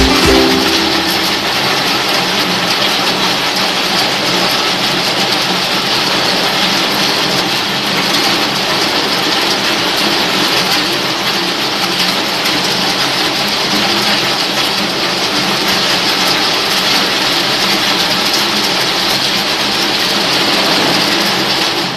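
Flexible screw conveyor running steadily: its electric drive motor and turning auger make a low hum under a loud, even hiss of granular material pouring from the discharge head.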